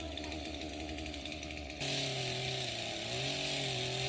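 Chainsaw running steadily; the sound changes abruptly about two seconds in to a lower, steadier pitch that sags briefly a second later.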